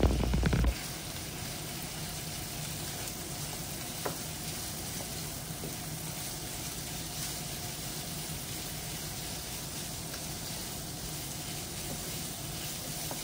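Marinated ground pork sizzling steadily in hot oil in a frying pan as it is stir-fried with minced shallot and garlic. A single faint click comes about four seconds in.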